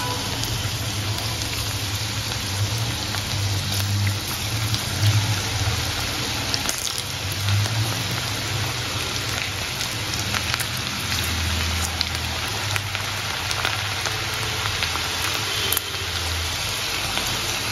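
Masala-coated okra deep-frying in very hot oil: a steady, busy sizzle with fine crackles and pops that grows as more pieces go into the pan, with a low hum underneath.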